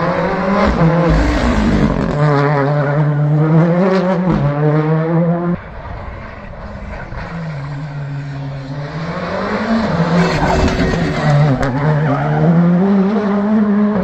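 Rally car engine revving hard at full throttle, its pitch climbing and then dropping again and again through gear changes and lifts. The engine sound falls away abruptly about five seconds in, then builds back up.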